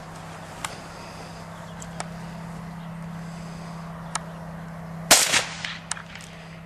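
A single sharp rifle shot about five seconds in, with a brief echo after it, over a steady low hum and a few faint clicks.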